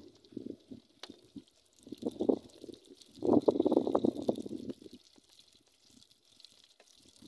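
Doughnut dough frying in hot oil in a pot over a wood fire: uneven bursts of low bubbling and gurgling over a faint steady sizzle. The longest, loudest burst comes about three to five seconds in.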